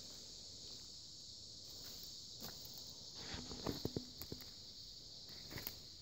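Footsteps crunching on the forest floor, a few scattered steps with a cluster of sharp snaps and crackles a little past the middle, over a steady high insect chorus.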